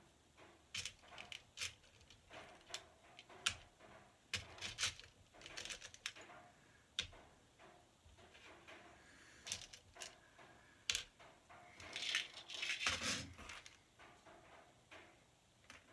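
Small hardware and tools being handled during assembly of a 3D printer frame: irregular light clicks and clinks, with a longer rustling scrape about twelve seconds in.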